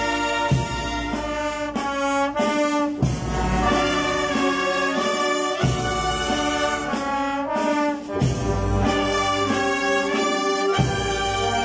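Wind band of clarinets and brass playing a slow funeral march: held melodic notes over deep bass drum strokes about every two and a half seconds.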